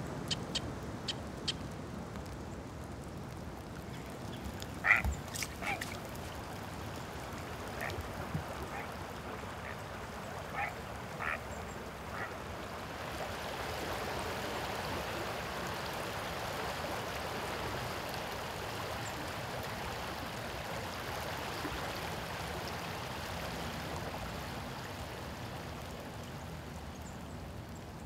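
Outdoor nature sound: a few sharp ticks, then several short bird calls that sound like quacks. About halfway through, a steady rush of flowing creek water takes over and fades near the end.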